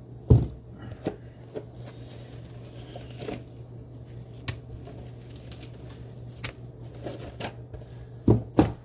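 Scattered knocks and clicks of objects being handled, with one loud thump just after the start and two more close together near the end, over a steady low hum.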